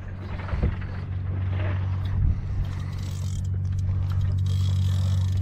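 Steady low hum of a boat engine, growing slowly louder, with a few soft knocks.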